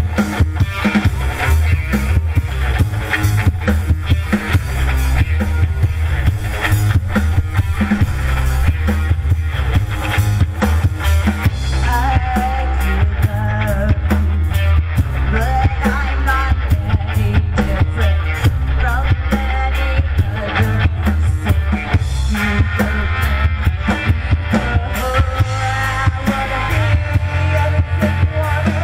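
Live rock band playing loudly: a drum kit keeps a steady beat under bass and electric guitar, with a trombone in the band; a melody line comes in over it about twelve seconds in.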